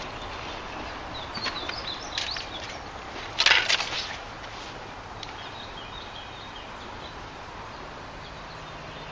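Small birds chirping over steady outdoor background noise, with a brief loud burst of noise about three and a half seconds in.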